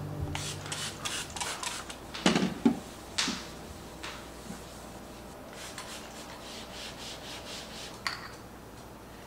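Several quick spritzes from a small spray bottle, with two louder knocks about two seconds in, then a cloth rubbing over the inside of a drawer. Near the end, a light click as a glass spice jar is set into a wire rack.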